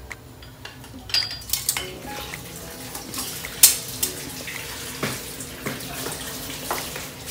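Cooking oil heating in a stainless steel wok, sizzling with a steady hiss and scattered sharp crackles and pops, the loudest pop a little past halfway.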